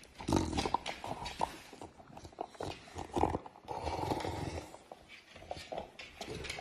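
Two dogs sniffing and snuffling at close range, noses pressed into a fabric, in irregular short bursts of breath and rustling.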